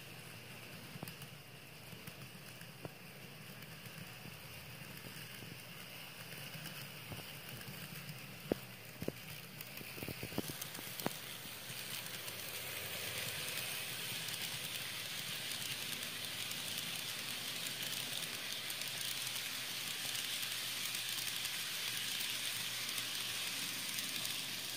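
N scale model freight train of tank cars rolling along sectional track, with a few sharp clicks of wheels crossing rail joints around the middle. A steady rolling hiss grows louder in the second half as the cars pass close by.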